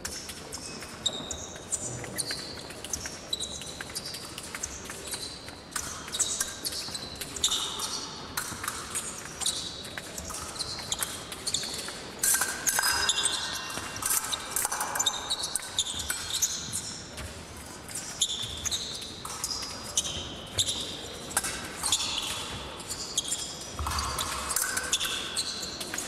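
Women's épée bout in progress: steel blades clicking and ringing against each other in irregular flurries, mixed with the fencers' shoes stamping and scuffing on the piste.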